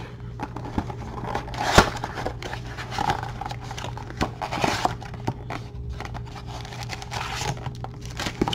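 Cardboard blaster box being opened and handled: the box is rustled and scraped as the inner tray of card packs slides out, with scattered sharp clicks and taps, the loudest about two seconds in.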